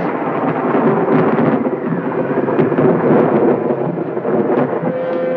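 Thunderstorm sound effect on an old film soundtrack: a dense, continuous rumble of thunder, broken a few times by sharp crackles.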